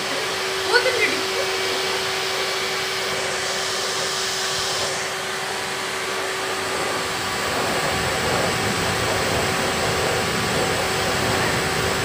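Vacuum cleaner running steadily: an even rush of air with a constant motor hum. It grows slightly louder and more rumbling about eight seconds in.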